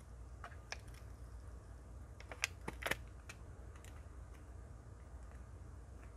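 Faint clicks and taps of fingers handling an iPhone X as its new back glass is pressed and aligned onto the glued frame, with a quick cluster of sharper clicks about two and a half seconds in, over a steady low hum.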